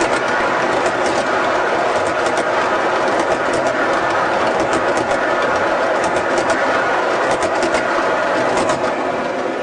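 O-gauge model grain hopper cars rolling past close by on three-rail track: a steady rumble of metal wheels with scattered sharp clicks.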